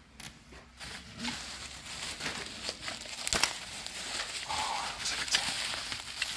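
Plastic bubble wrap crinkling and rustling as it is pulled open by hand, starting about a second in, with many small crackles and one sharper click a little over three seconds in.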